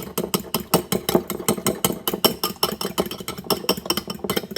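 Fork beating two eggs in a small bowl: rapid, even clinking strokes of the fork against the bowl, one after another without a break.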